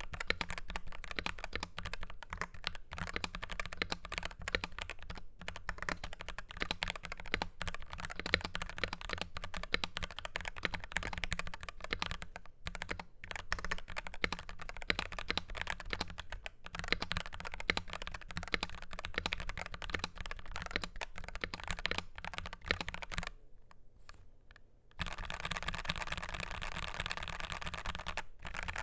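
Continuous fast typing on a Dark Project KD83A mechanical keyboard with G3ms Sapphire switches, a stainless steel plate and PBT double-shot keycaps: a dense run of key clicks. The typing stops about 23 seconds in, and after a brief near-silence a steady hiss follows.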